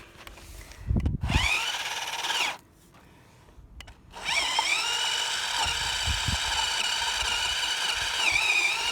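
Electric motor of an RC car whining at high revs: a short burst about a second in, then after a pause it spins up again and holds a steady high whine, dipping briefly near the end.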